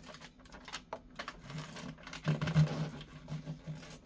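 Wrapping paper and a cardboard box being handled: scattered crinkles and rustles, busier and louder from about halfway through, over a low steady hum.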